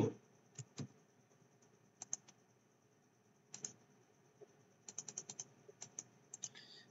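Faint, scattered computer mouse clicks: a pair about a second in, another pair around two seconds, one around three and a half seconds, then a quick run of about seven clicks just before five seconds in and a few more near the end.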